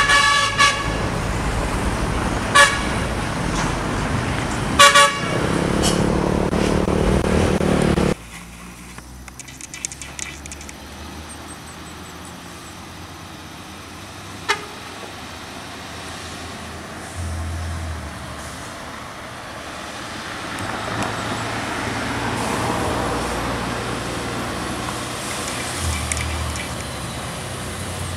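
Heavy road traffic with diesel trucks running, and several short vehicle-horn toots in the first five seconds. It then cuts abruptly to a quieter stretch where a MAN TGS heavy truck's diesel engine grows gradually louder as it climbs toward the listener.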